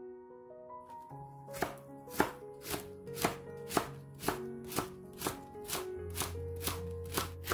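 Kitchen knife slicing napa cabbage leaves into thin strips on a wooden cutting board. The blade knocks on the board in an even rhythm, about twice a second, starting about a second and a half in. Background music with sustained notes plays throughout.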